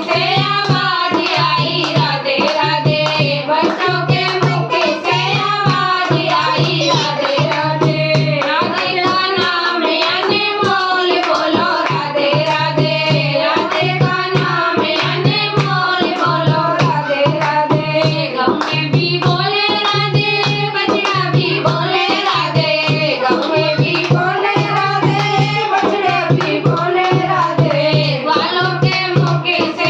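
Haryanvi devotional bhajan: a voice singing over a steady drum beat. The beat drops out briefly about ten seconds in, then returns.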